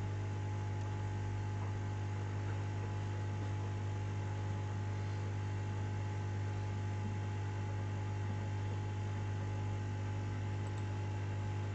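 Steady low mains hum with a faint hiss under it, unchanging throughout; no other sound.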